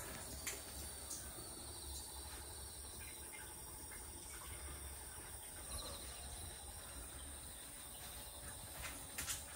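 Insects trilling steadily in one continuous high-pitched tone over a low steady hum, with a few faint clicks, two of them close together near the end.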